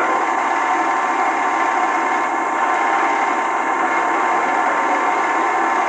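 A steady rushing noise with a faint buzz of steady tones, from a television's soundtrack picked up off its speaker by a camcorder.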